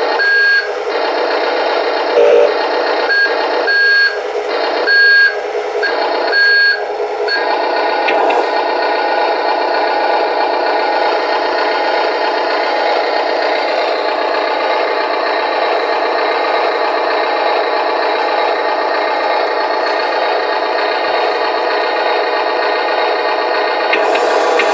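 An Amewi 22500 RC wheel loader's sound module playing a steady engine sound through its small speaker, with about five short warning beeps in the first seven seconds, as for reversing.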